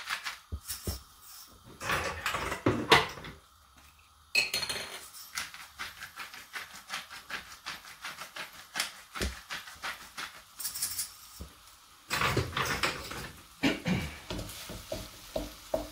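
Hand-twisted salt and pepper grinders grinding over a frying pan, a fast run of crunchy clicks. From about twelve seconds in there is louder clatter and rustling as raw mince is broken up in the pan.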